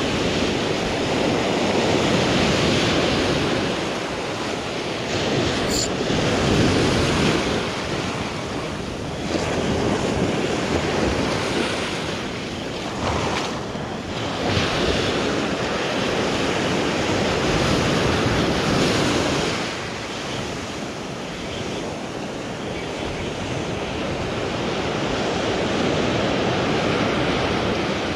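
Surf breaking and washing up the sand, swelling and easing every few seconds, with wind buffeting the microphone.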